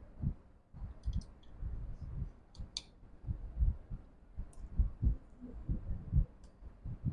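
Irregular light knocks and sharp little clicks of tools and small parts being handled as a MacBook Pro A1990 laptop is screwed back together.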